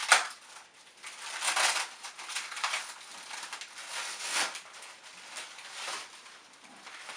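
Packaging rustling and crinkling in repeated swells as packed parts are handled and unwrapped, the loudest right at the start.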